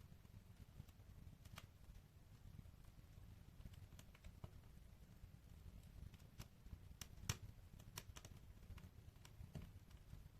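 Wood fire in a fireplace crackling: faint, irregular pops and snaps, the loudest about seven seconds in, over a steady low rumble.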